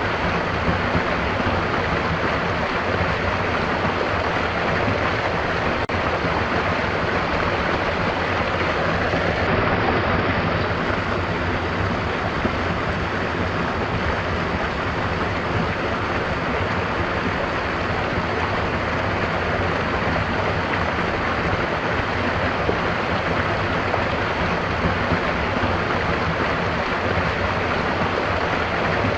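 A stream running: a steady, even rush of flowing water.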